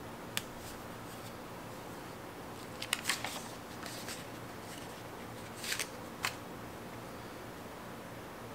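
Sticker paper and metal tweezers being handled on a planner page: a few short clicks and paper crackles, a cluster about three seconds in and another near six seconds, over a faint steady hiss.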